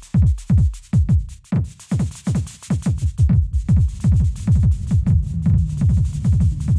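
Electronic drum-machine music from an Elektron Analog Rytm Mk2: kick drums whose pitch drops quickly on each hit repeat several times a second, stacked by delay echoes into a dense pattern. In the second half the hits crowd together into a steadier low rumble, with a faint hiss above.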